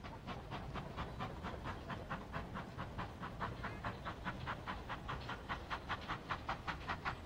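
Steam locomotive working, its exhaust chuffing in a quick, even rhythm over a low rumble.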